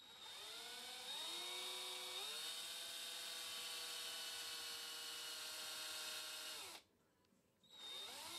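Small electric drill with a thin twist bit boring a hole in a clear plastic frame. Its motor whine steps up in speed twice in the first couple of seconds, holds steady, then winds down and stops about seven seconds in. Near the end it starts again briefly, rising in pitch.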